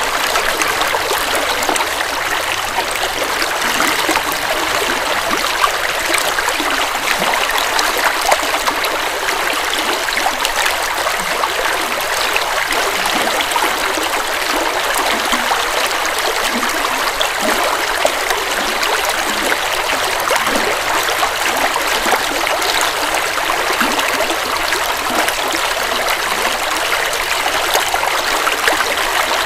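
Forest river flowing over rocks: a steady rush of water with constant small splashes and gurgles.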